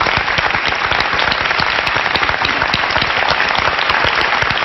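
Studio audience applauding steadily, a dense, even patter of many hands clapping in welcome.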